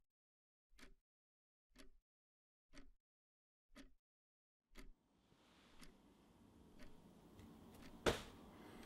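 A clock ticking faintly, once a second, in an otherwise silent room. A faint hiss of room noise comes in about halfway, and one sharper, louder click sounds near the end.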